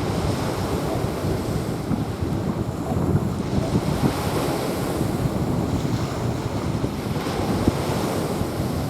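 Sea waves washing onto a sandy beach, steady and unbroken, with wind rumbling on the microphone.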